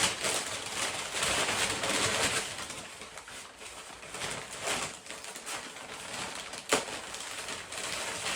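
Rustling and crinkling of packaging being handled as items are unwrapped, busiest in the first couple of seconds, with a single sharp tap about two-thirds of the way through.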